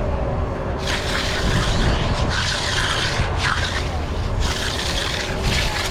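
Rhythmic rasping scrape strokes, about one a second, starting about a second in, over the steady low rumble of a running engine.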